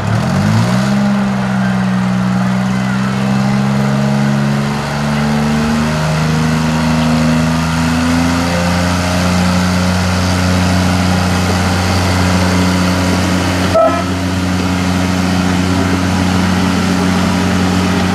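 A 1938 Planet narrow-gauge diesel locomotive's engine revs up and pulls away. Its note climbs slowly for several seconds as the train gathers speed, then runs steady. A brief high tone sounds about fourteen seconds in.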